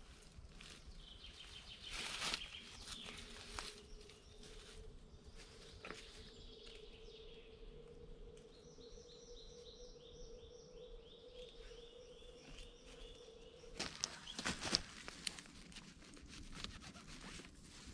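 Dry leaf litter and plant stems rustling and crackling as mushrooms are picked by hand on the forest floor, in louder bursts a couple of seconds in and again about three-quarters through. Midway a songbird sings a run of short repeated falling notes, over a faint steady hum.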